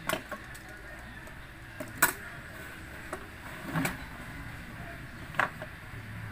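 Four short, sharp clicks and knocks, spread a second or two apart, as a metal square and a pencil are set down and handled on a wooden plank while it is marked for cutting. A faint steady low hum lies underneath.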